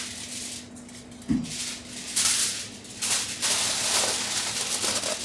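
Aluminium foil crinkling and rustling as a sheet is laid over a stainless-steel bowl and pressed down around its rim, in several uneven bursts, louder in the second half.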